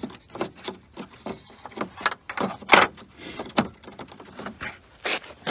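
Irregular clicks, knocks and scrapes of a replacement front camera being worked into the grille opening of a Mercedes GLK 250, with a sharper knock about halfway through and another near the end.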